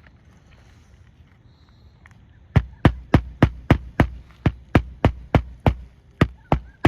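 Hammer blows on an asphalt shingle roof, a quick even run of about fifteen sharp strikes, nearly four a second, starting about two and a half seconds in, as in nailing down a shingle.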